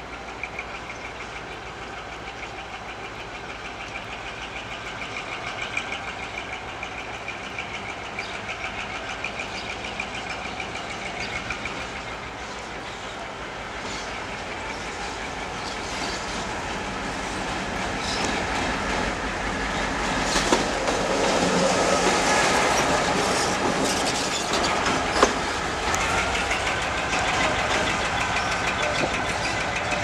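GM G22 diesel locomotive running slowly on a shunting move, its engine growing louder as it approaches, with wheels clicking over the rails. Two sharp knocks come in the second half.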